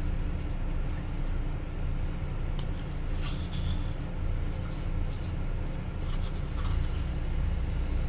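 Steady low kitchen background hum with a few faint light ticks.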